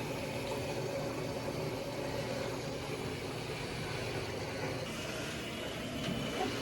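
Front-loading washing machine running on a test cycle with a steady mechanical hum.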